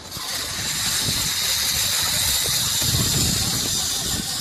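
Zip-line trolley pulleys running along a steel cable during a descent: a loud, steady high hiss-whir that starts suddenly and carries on, with a low rumble underneath.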